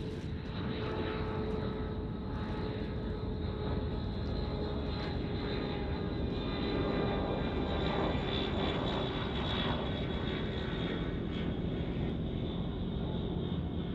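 A Fokker F27-200 Friendship turboprop on landing approach, its two Rolls-Royce Dart engines running with steady high-pitched tones over a broad rumble. The sound grows a little louder around the middle as the aircraft comes closer.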